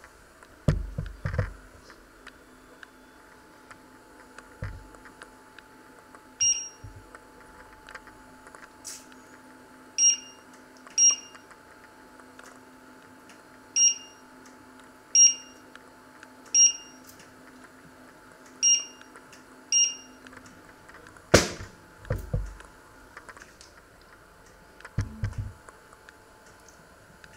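Touch-control electric cooktop beeping as its control pads are pressed: eight short, high beeps a second or two apart. Then a sharp clack, the loudest sound, and a few dull knocks.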